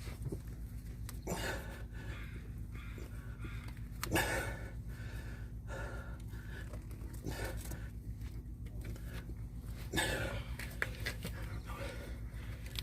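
A person breathing hard with effort, with a few sharp puffs or grunts, while a tire plug is forced into a punctured tire, over a steady low hum.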